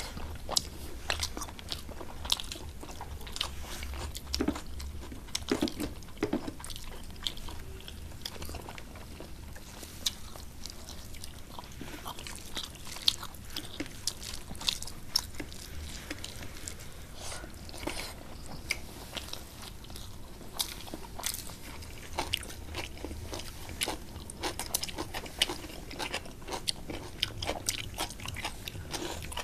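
Close-miked eating sounds of two people eating rice and curry with their hands: steady chewing with many small crunches and clicks.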